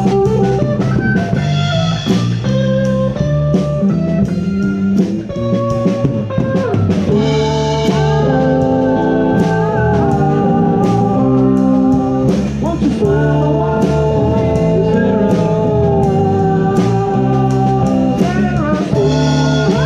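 A live band playing a blues-rock number on electric guitar, electric bass and drum kit, with cymbal hits keeping a steady beat.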